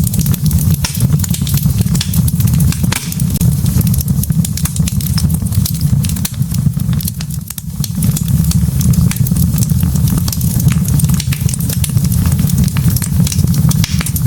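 Wood fire of burning logs, crackling and popping in many quick, irregular snaps over a steady low rumble of the flames, briefly quieter about seven seconds in.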